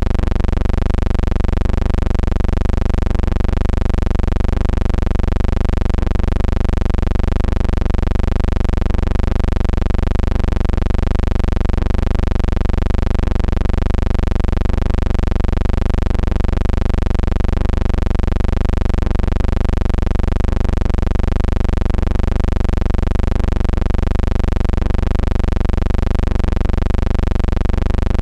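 Steady buzzing hum with many overtones, wavering slightly about twice a second, with no commentary or crowd over it.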